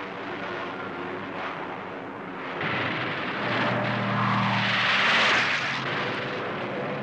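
Propeller aircraft engines droning. A steadier, deeper engine note joins about three and a half seconds in, and the noise swells to its loudest around five seconds before easing off.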